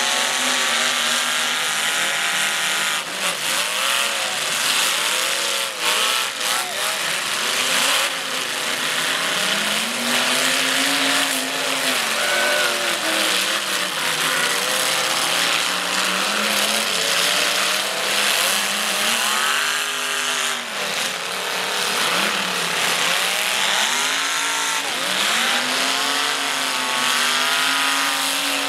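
Engines of several demolition derby cars revving up and down over one another. Now and then there are sharp crashes as the cars hit each other: several in the first eight seconds and another about twenty seconds in.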